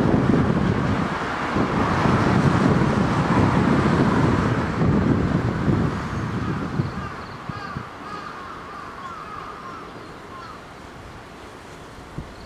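Wind rumbling on the microphone, heavy at first and dying down after about six seconds, over faint railway yard noise. A few faint, short, high-pitched cries come through in the middle.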